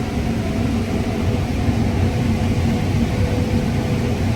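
Steady low drone of a John Deere combine running in a corn field, heard from inside the cab, with a constant hum over the engine and threshing noise.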